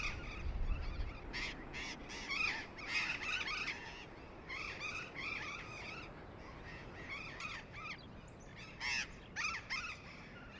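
A flock of burrowing parrots calling, many harsh screeching calls overlapping in bursts with short lulls between, over a low rumble of wind.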